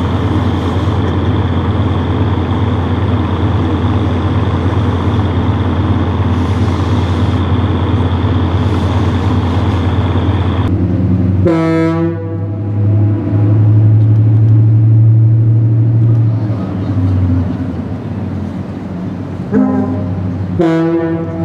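Steady drone of heavy machinery with a low hum. About halfway it changes, and a horn gives a short blast. A low engine-like tone then runs loud for a few seconds, and the horn gives two more short blasts near the end.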